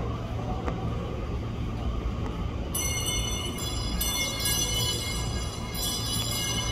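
Low steady rumble of a train standing at a station platform; about three seconds in, a high-pitched electronic departure melody of bright bell-like notes starts playing over the platform.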